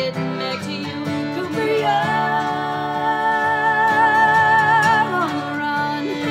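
Bluegrass acoustic guitar strumming with fiddle playing an instrumental break; a long held note with vibrato rings through the middle and slides down near the end.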